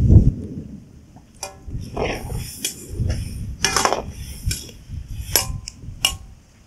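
A steel spoon stirring dried red chillies in an iron kadai of water, clinking and scraping against the pan about eight times at irregular intervals. A brief rustle at the very start is the tail of the chillies landing in the pan.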